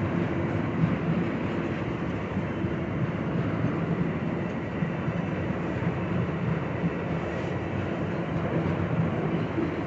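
Tank-car freight train hauled by two GE ES44 diesel locomotives, running steadily up a grade: an even rumble with a low, steady engine drone and no sharp knocks.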